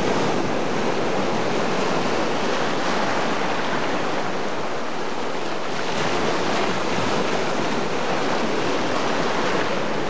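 Ocean surf washing up the beach, a steady rush of breaking waves and foam.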